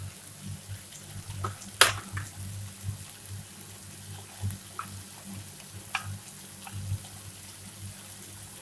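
Onions and tomatoes sizzling softly in a pan as spice powders go in, with one sharp clink about two seconds in and a few lighter taps.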